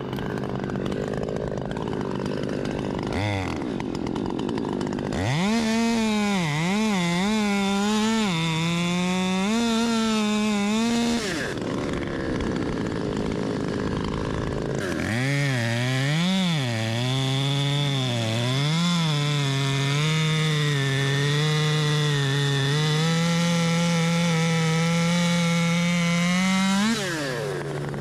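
Husqvarna top-handle chainsaw idling, then revved to full throttle and cutting through maple wood about five seconds in. Its engine note dips and recovers as the chain loads in the cut. It drops back to idle for a few seconds, then cuts again for about twelve seconds, falling back to idle near the end.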